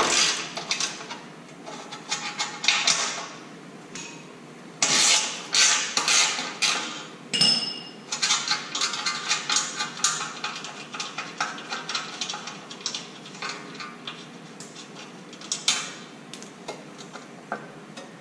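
Hand tools working the 16 mm bolts of a Jeep's factory skid plate: a ratchet clicking in bursts with metal clinks, and a brief high squeak about seven seconds in.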